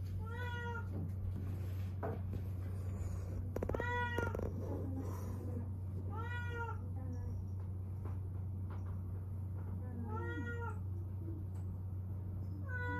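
Domestic cat meowing in long, drawn-out cries, about five of them, one every two to three seconds, the last cut short at the end. The cries come from a cat in distress at being held in a towel for veterinary treatment.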